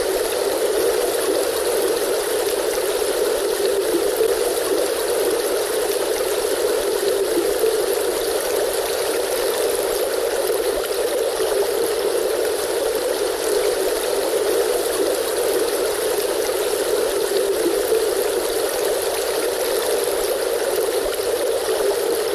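River stream water flowing steadily, an even rushing with no drops, splashes or changes.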